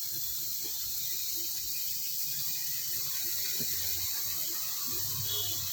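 Chili and spice seasoning frying in oil in a pan, a steady sizzle with a few faint crackles.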